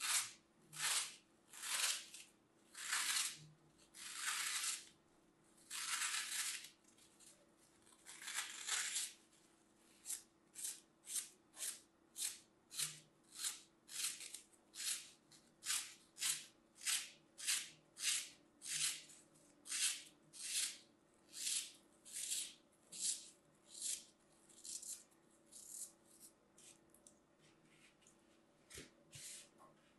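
Dry green floral foam crunching as hands crush and snap slabs of it and a knife slices into the block: a run of crisp, dry crunches. They come as longer strokes for the first few seconds, then as quick short ones about two a second, growing fainter near the end.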